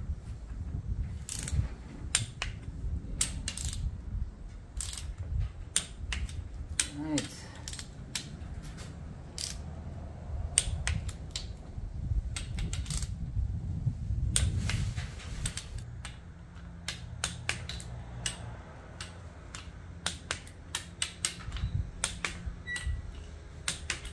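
Torque wrench ratcheting on cylinder head bolts: many sharp, irregular clicks as the bolts are brought up to 39 newton-metres in the tightening sequence.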